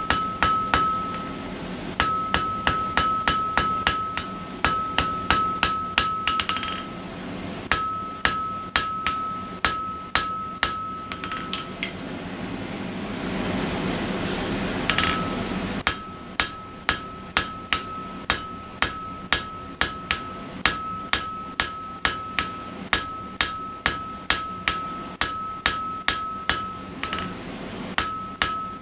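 Hand hammer striking a hot mild steel bar on the anvil in runs of about three to four blows a second, drawing the bar down. Between blows the anvil rings with a clear high tone. The hammering stops for a few seconds about twelve seconds in, with a steady rushing noise in the gap, then carries on.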